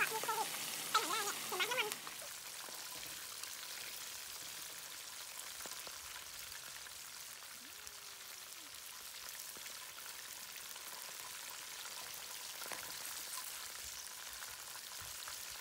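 Chicken wings deep-frying in a wok of hot oil: a steady bubbling sizzle.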